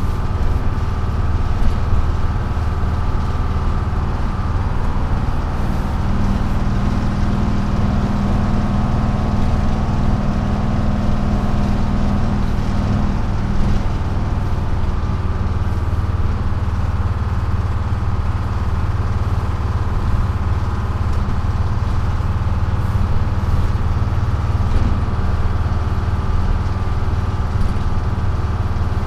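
1948 GMC Silversides PD3751 bus on the move, its Detroit Diesel 6-71 two-stroke diesel running steadily under way, heard from inside the cab together with road noise. A low drone, with a louder hum for a stretch in the middle.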